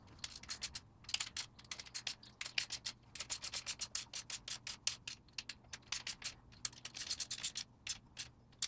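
Hand ratchet clicking rapidly as it is swung back and forth to run down bolts on the top of the cylinder head. The clicks come in runs of a second or two with short pauses between them.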